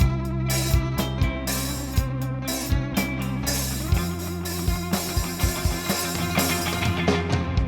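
Instrumental rock band playing: guitar over bass and a drum kit keeping a steady beat, with no vocals.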